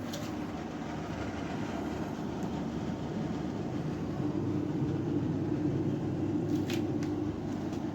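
Iris Ohyama IPA-2822G portable air conditioner running: a steady hum of compressor and fan, growing slightly stronger partway through, with a brief faint click about two-thirds of the way in.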